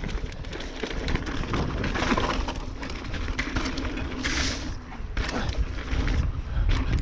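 Mountain bike riding down a dirt trail: wind buffeting the microphone over tyre rumble and a steady clatter of rattles. A brief hiss comes about four seconds in.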